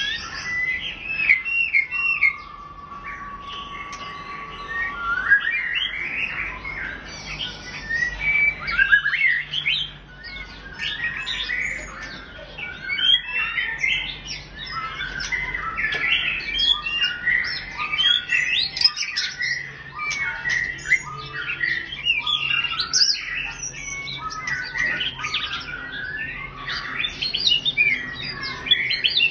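White-rumped shama singing a long, varied song of rapid whistles, trills and chirps, with one long steady whistled note a few seconds in.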